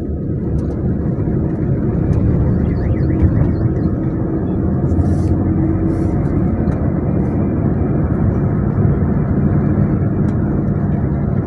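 Steady drone of a motor vehicle's engine and road noise, with a few faint clicks over it.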